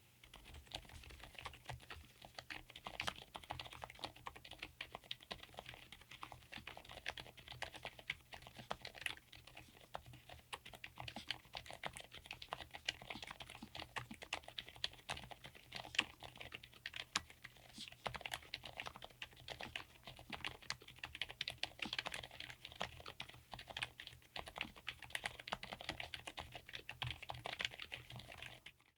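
Continuous typing on a Lofree Flow84 low-profile mechanical keyboard with Kailh Hades silent switches: a dense, unbroken run of quiet, muted keystrokes.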